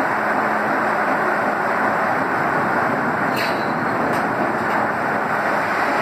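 Steam sawmill machinery running with a steady, even mechanical noise and no saw whine, with a couple of faint clicks about three and a half and four seconds in.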